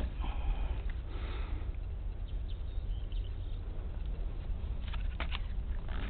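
Wind buffeting the microphone as a steady low rumble, with brief rustles and a few sharp clicks from hands handling a small model airplane.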